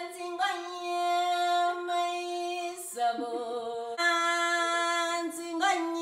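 A solo voice singing long, loud held notes, dropping to a lower note about three seconds in and returning to the first note a second later.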